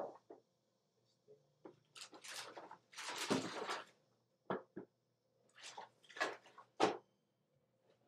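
Rummaging in an open wooden desk drawer: irregular rustling and shuffling with a few sharp knocks as objects are moved about.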